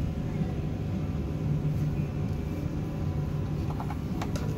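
Steady low machinery hum inside a tourist submarine's passenger cabin, with a few light clicks near the end.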